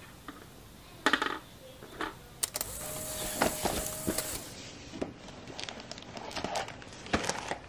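Paper and plastic stationery being handled on a wooden desk: scattered light taps, clicks and rustles, with a brief steady tone about three seconds in.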